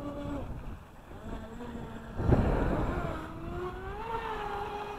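Electric motor whine of an Atomik Barbwire 17 RC speedboat running on the water, its pitch shifting with the throttle and gliding up about three seconds in. A gust of wind on the microphone a little after two seconds.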